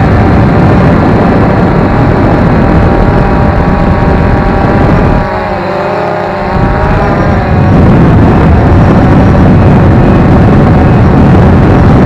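Quadcopter drone's motors and propellers whining in flight, heard from an action camera mounted on the drone, under a heavy low rumble. About five seconds in, the rumble drops away for a second or so and the whine wavers up and down in pitch as the motors change speed, then the rumble returns.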